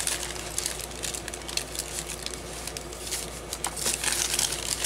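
Dry waxed deli paper crinkling and crackling as sheets are handled and laid down onto wet paint, in scattered light clicks and rustles.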